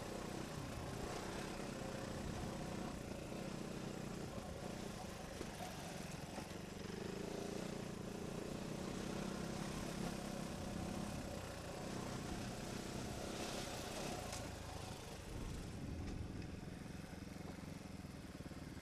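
Trail motorcycle engine running at fairly low, steady revs that rise and fall a little, with wind and rumble noise over it.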